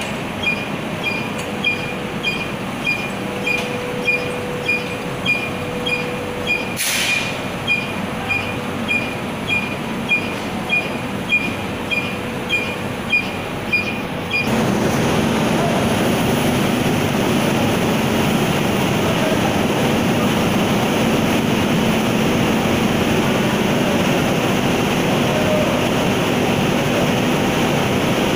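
MMC Truck Loader 8P-Mini belt conveyor running, with its motor and gearbox drive making a steady mechanical noise. For the first half there is a regular tick about one and a half times a second; then the sound changes abruptly to a louder, even drone with a low hum.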